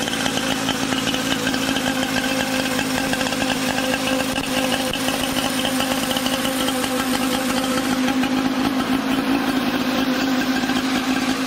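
Vintage Scott motorcycle's water-cooled two-stroke twin engine running steadily on the stand, not revved.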